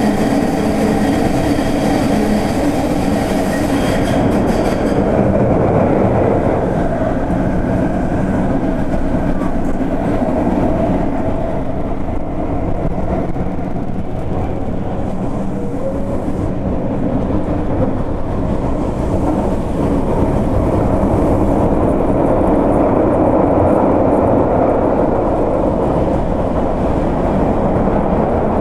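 A Fukuoka City Subway Nanakuma Line linear-motor train running at speed through a tunnel, heard from inside the rear cab. The wheels and tunnel make a steady rumble, with a higher hiss and faint whine over it for the first few seconds.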